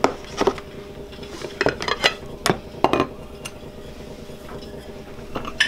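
Dishes and utensils clinking: about ten sharp, irregular clinks and knocks as a glass bowl of corn kernels is handled over the mixing bowls. A faint steady hum runs underneath.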